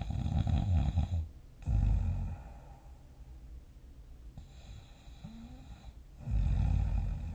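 A person snoring in deep sleep: a loud snore at the start, another about two seconds in, a softer breath around five seconds, and a third loud snore near the end.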